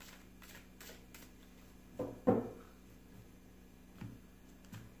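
A deck of tarot cards being handled on a table: faint card flicks in the first second, then two louder soft knocks about two seconds in and lighter ones near the end.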